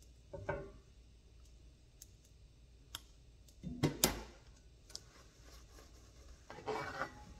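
Kitchen utensils clicking and knocking against cookware: a few scattered light clicks, with the loudest pair of knocks about four seconds in.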